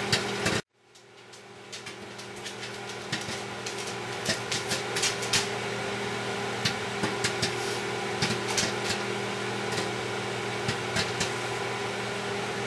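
Microwave oven running with a steady hum while popcorn kernels pop irregularly, several a second, inside a plastic Tupperware stack cooker, the popping in full swing. The sound cuts out briefly less than a second in and fades back up.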